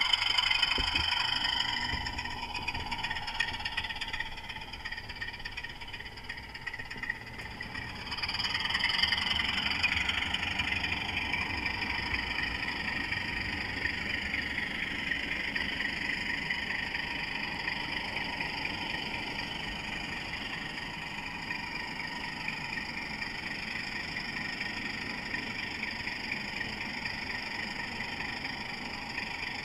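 Model Class 24 diesel locomotive running along the track, heard from a camera riding on it: a steady mechanical running noise with high steady tones over a low rumble, growing louder about eight seconds in and then settling.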